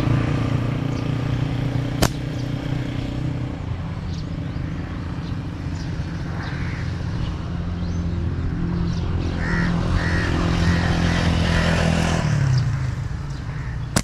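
A motor vehicle's engine running steadily, its pitch dropping about twelve seconds in as it slows. A single sharp click sounds about two seconds in.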